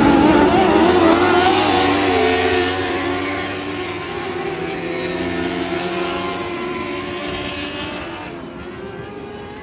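A pack of lightning sprint cars' motorcycle engines running together on a dirt oval, a few revving up near the start, then fading as the field moves away down the track.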